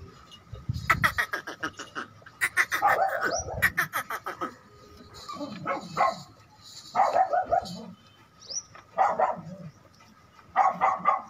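Repeated short animal calls, about six of them at irregular intervals, each lasting roughly half a second, with a quick run of clicks in the first few seconds.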